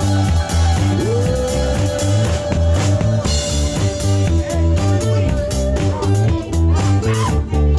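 Live band playing a rock groove: electric bass and acoustic guitar over a steady beat, with one long held note that slides up about a second in and holds for several seconds.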